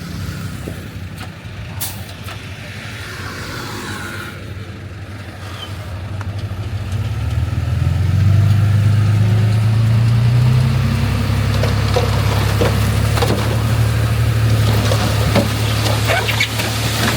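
Heavy diesel engine of earthmoving equipment running low, then revving up about eight seconds in and holding a loud steady drone. Scattered knocks and clanks come over it in the last few seconds.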